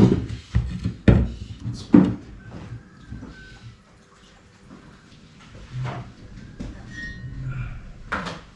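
Household knocks and clatter: a knife set down with a knock on a wooden dining table, a few more sharp knocks within the next two seconds, then quieter scattered clunks of things handled at a kitchen counter and one more clatter near the end.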